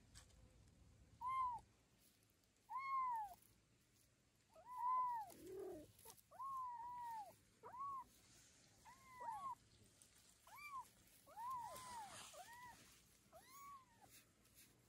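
Kitten mewing again and again: about a dozen short, high-pitched, arching mews, some in quick pairs. One lower call comes about five seconds in.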